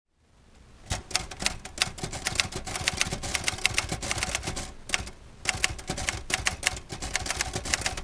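Manual typewriter being typed on: rapid, irregular keystrokes clacking in runs, with a brief pause a little past halfway. The sound fades up from nothing over the first second.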